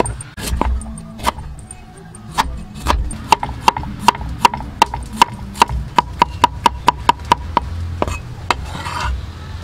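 Steel cleaver chopping fresh ginger and turmeric root on a wooden chopping block. The blade knocks on the wood irregularly at first, then settles into a quick steady run of about four chops a second, each with a short ring. A brief scrape comes near the end.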